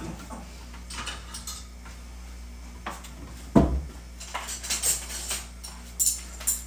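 Plates and cutlery clinking and clattering as dishes are handled, with a single dull thump about halfway through and a run of bright clinks in the second half.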